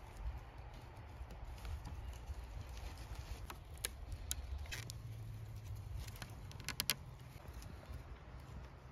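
A few light, sharp clicks and knocks, with a quick cluster of them about seven seconds in, over a low steady rumble.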